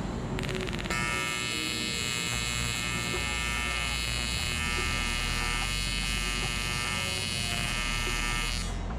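AC TIG welding arc on aluminum sheet: a loud, steady buzz that starts about a second in and cuts off just before the end.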